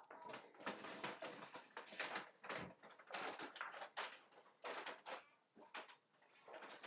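Quiet, irregular rustling and soft taps of a sandwich being put together by hand on a wooden cutting board: bacon strips settled onto the meat and the top bun set on and pressed down.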